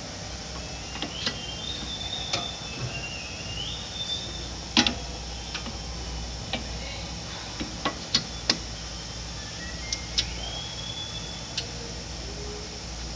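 Scattered metallic clicks and knocks of a car's front disc brake caliper and pads being handled and fitted back onto the caliper bracket, the loudest knock about five seconds in.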